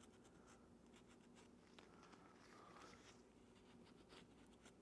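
Near silence, with faint scratchy rubbing of a rag wiping a metal mating surface clean with brake cleaner.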